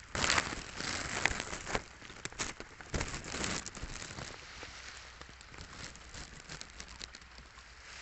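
Light rain pattering, with louder bursts of dense crackling ticks in the first two seconds and again around three seconds in, then settling to a steadier patter.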